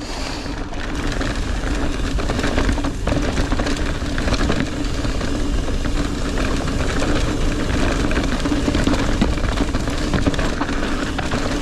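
A mountain bike rolling fast down a dirt trail, heard through a GoPro Hero 9 whose mic ports are covered with a foam-and-fur wind muff: a steady rush of tyre and wind noise with a low rumble, a constant hum and frequent small rattles and ticks from the bike.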